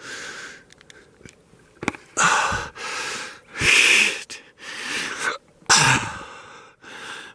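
A man breathing heavily and wheezing: five or six long, noisy breaths about a second apart.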